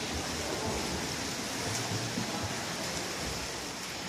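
Steady rushing and splashing of pool water from swimmers kicking in the lanes.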